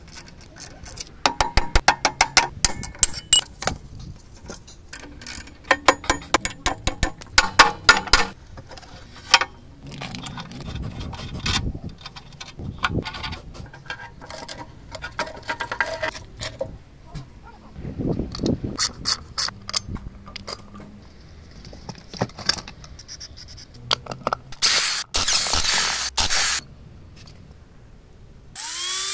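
Ratchet wrench clicking in quick runs while undoing the bolts on a scooter's rear shock absorbers, with scattered knocks of metal parts being handled in between. Near the end comes a burst of steady noise lasting about two seconds.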